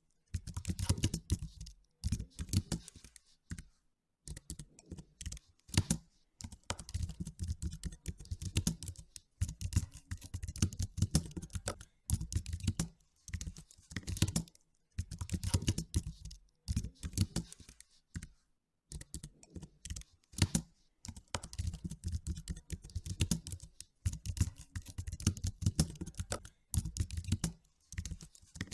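Computer keyboard being typed on in quick runs of keystrokes, broken by short pauses every second or two.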